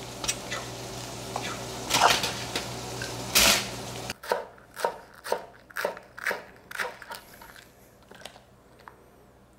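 Kitchen sounds: a steady hum with the clatter of utensils and a loud scraping burst. After an abrupt drop in the background, a run of sharp knocks, about two a second, fades away.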